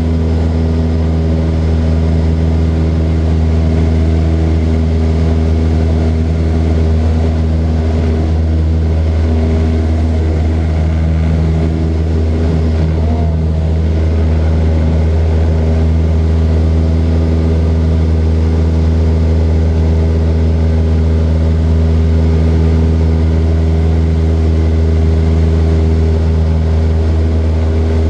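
Small propeller plane's piston engine droning steadily in flight, a constant even pitch with no change in power.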